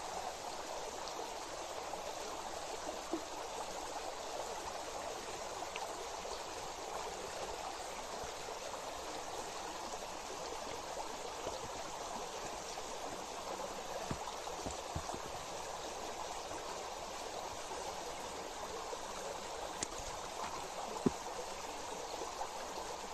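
Flowing stream water rushing steadily, with a few faint clicks and taps.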